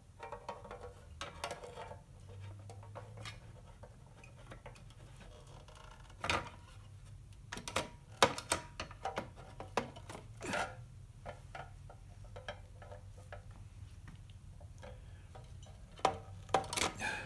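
Scattered light clinks and taps of glass pieces and hand tools being handled on a workbench, with a few sharper knocks around the middle and a quick cluster near the end.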